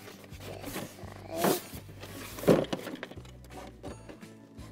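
Lid of a Playmobil set's cardboard box being worked loose and lifted off, with two short rubbing squeaks of cardboard on cardboard, the second and louder one about two and a half seconds in.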